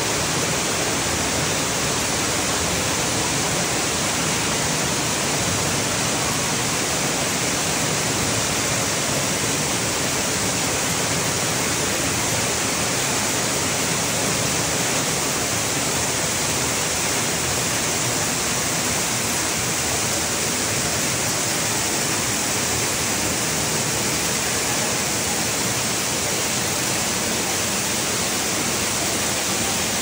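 Underground waterfall inside a cave: a steady, unbroken rush of falling water.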